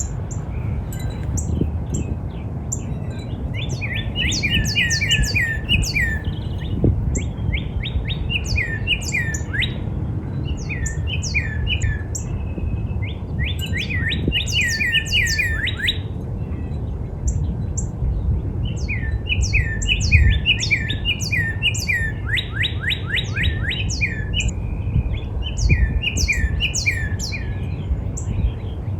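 Northern cardinal singing: series of repeated, downslurred clear whistles, phrase after phrase, with one quicker run of steeper slurs about two-thirds of the way in. Thinner, higher notes from other birds and a steady low rumble sit underneath.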